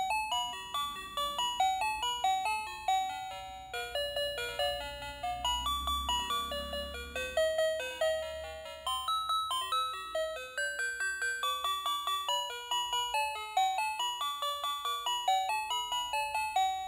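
Battery-operated dancing robot toy playing its built-in electronic melody: a tinny tune of bell-like notes, about three or four a second, that cuts off abruptly near the end.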